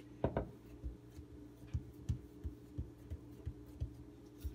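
Soft, even thuds, about three a second, of a hand patting and pressing biscuit dough flat on a granite countertop. A sharper knock comes just after the start.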